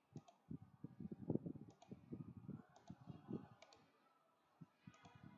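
Quiet clicking at a computer: about five sharp mouse-button clicks, over many soft low taps and knocks on the desk.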